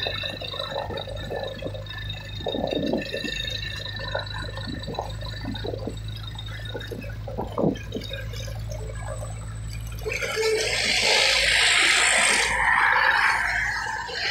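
Road noise while riding behind a heavily loaded truck on a climb: a low steady engine hum with wind buffeting the microphone. About ten seconds in, a louder rushing noise rises for a few seconds as the truck is overtaken.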